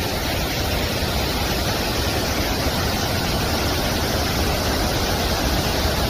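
A large waterfall pouring over rock ledges: a steady, even rushing noise that does not change.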